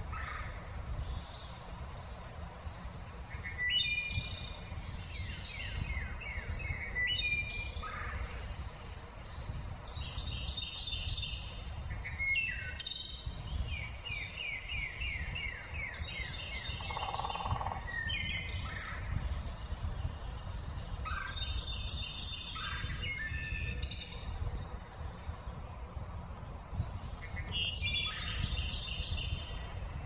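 Wild birds singing and calling: quick trills of rapidly repeated notes and short chirps, one after another every second or two. Under them run a steady high-pitched whine and a low outdoor rumble.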